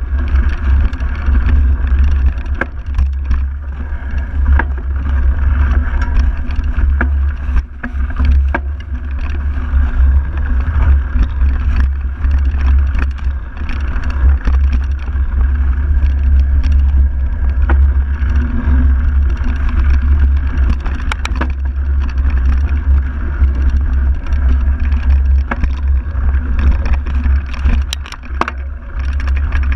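Wind buffeting the microphone of a handlebar-mounted camera on a mountain bike riding a dirt forest trail, a steady low rumble, with frequent sharp clicks and rattles from the bike jolting over the rough ground.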